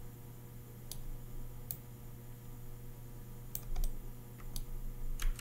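Scattered clicks of a computer mouse and keyboard, about eight in all, several bunched together past the middle and again near the end, over a steady low electrical hum.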